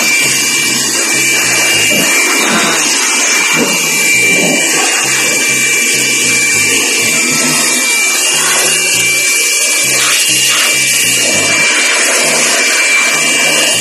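Handheld electric blower running steadily: a loud rush of air with a constant high whine.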